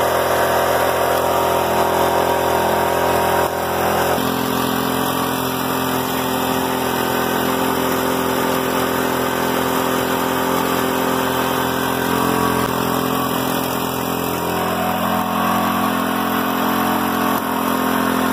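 A Honda 200 cc single-cylinder engine runs steadily, driving a Comet APS 41 three-diaphragm pump that has just been fitted with new diaphragms. The pitch shifts slightly about four seconds in.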